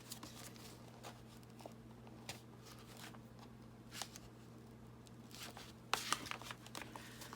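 Paper bag pages rustling and crinkling with light taps as a pointed awl-like tool is worked through them to make a hole, louder for a moment about six seconds in. A steady low hum sits underneath.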